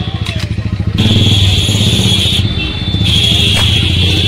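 An engine running loud and steady, growing louder about a second in.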